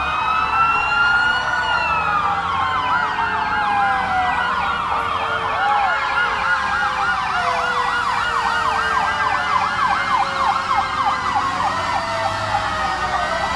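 Several fire engine sirens sounding at once: slow wails rising and falling over a couple of seconds, overlapped for much of the time by a fast yelp that cycles about three to four times a second.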